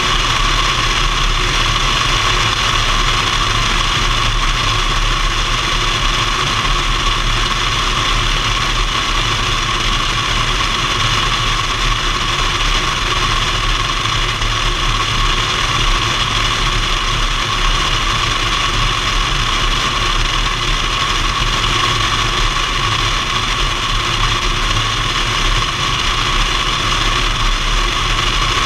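Piper PA-28 Warrior in flight: its four-cylinder piston engine and propeller drone steadily, mixed with heavy airflow rushing over the microphone mounted under the tail. The sound holds even and unchanging throughout.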